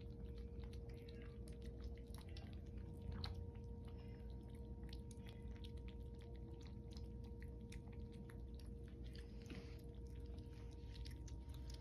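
A litter of kittens eating from a shared plate: faint, rapid, irregular chewing clicks, with a steady faint hum underneath.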